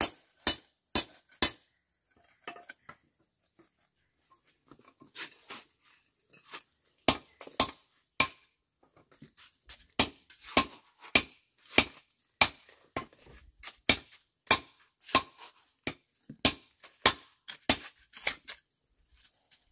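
Bricklaying: a run of sharp taps and clinks as a steel trowel and fired clay bricks knock together while the bricks are set in mortar. The taps are quieter and sparse between about two and seven seconds in, then come thick and irregular, one or two a second.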